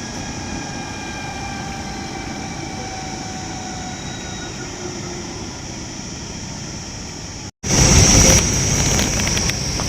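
Helicopter turbine and rotor noise, steady, with faint whining tones that slowly drift lower. About seven and a half seconds in, it cuts to a louder, rougher noise with rapid crackling clicks.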